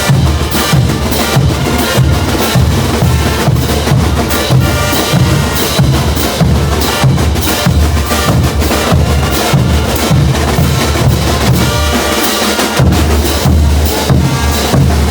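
Bolivian brass band playing loudly, with bass drum and snare driving a steady beat under the horns; the bass drum drops out briefly about twelve seconds in, then comes back.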